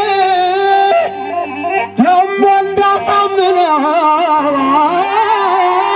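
A man chanting Amhara shilela, a heroic war chant, into a microphone over a PA, holding long wavering notes with ornaments and breaking briefly about one and two seconds in, over a band's keyboard and bass accompaniment.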